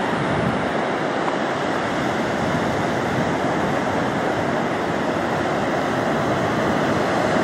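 Ocean surf breaking on a sandy beach: a steady, continuous rushing wash of waves.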